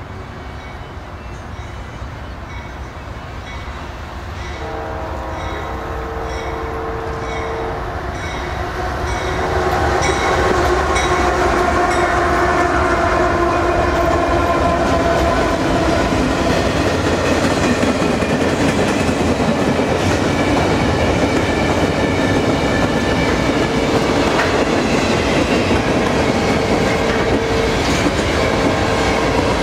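Union Pacific diesel locomotives leading a freight stack train sound a multi-note air horn in long blasts as they approach. The engines then pass close by, and the train runs on as a steady rumble with rail clatter. A single steady tone rises over it near the end.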